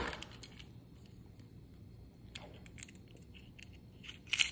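Light plastic clicks and taps from handling a Beyblade string launcher, with a short, louder clatter of clicks near the end as its ribbed pull cord is drawn out.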